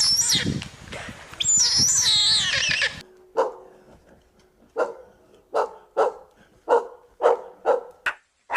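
High bird chirps gliding up and down, then after a sudden cut a dog barking over and over, about two short barks a second.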